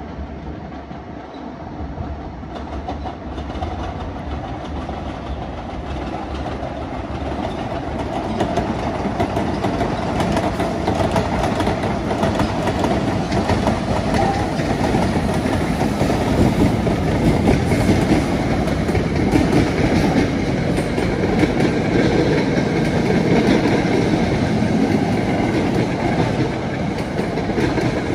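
A passenger train running by on the line, its wheel and rail noise growing louder over the first ten seconds or so, then holding steady and loud as the cars pass.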